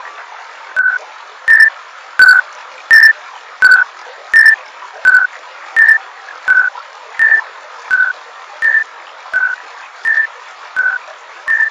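Japanese railroad crossing warning bell ringing, alternating between a lower and a higher tone at about one and a half strokes a second, starting about a second in, over a steady hiss.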